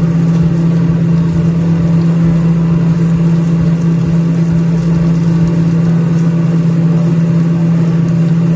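A loud, steady low hum from a kitchen appliance motor, under the faint scraping and sizzling of minced beef being stirred in a non-stick frying pan with a spatula.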